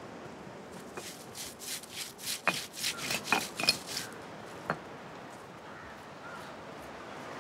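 Stone roller rubbed back and forth on a flat granite grinding stone (ammikkallu), crushing dried red chillies with cumin and fennel seeds: a quick run of rasping, gritty strokes from about a second in to about four seconds in, then one sharp tap.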